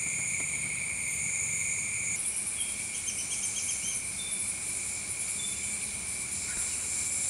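A steady chorus of insects shrilling on several high pitches at once, shifting slightly about two seconds in. A short run of rapid pulsed chirps comes a few seconds in.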